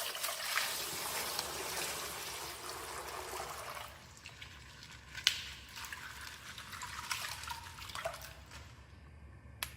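Plastic packaging of a mystery toy pack rustling and crinkling as it is handled and opened, with a few sharp clicks.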